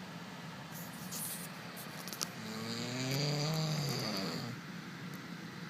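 A man snoring in his sleep: one long snore about halfway through, its pitch rising and then falling.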